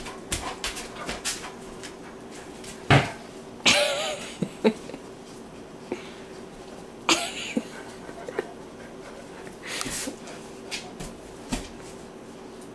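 Two large dogs jostling on a padded dog bed: scattered thumps and rustles of paws and body against the bed and blanket, with a short wavering dog vocalization about four seconds in.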